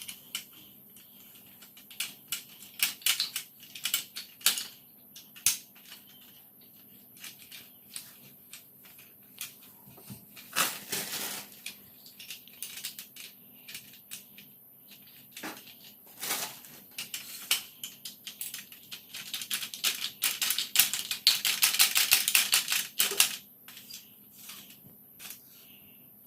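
Wheels being fitted and tightened onto an all-metal appliance trolley: scattered metal clicks, knocks and rattles, a brief scrape about ten seconds in, and a fast run of clicking for a few seconds near the end as a wheel fitting is screwed down.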